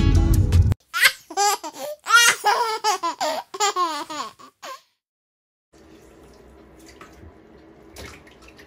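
A three-month-old baby cooing and laughing in a string of short, high calls that rise and fall, for about four seconds. This gives way to a faint bathroom hush with a little water near the end.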